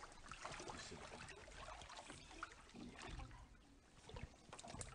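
Water sloshing and trickling faintly in a baptismal tank as a person steps down into it and settles in the water, with a few small knocks.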